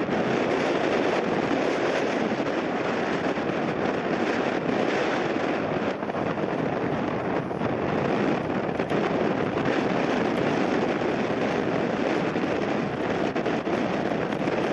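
Airliner taking off, its engines at takeoff power in a steady, loud rush, mixed with strong wind buffeting the microphone.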